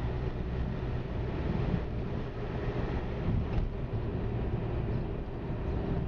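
Steady low rumble of a moving vehicle's engine and road noise, with no clear breaks or single events.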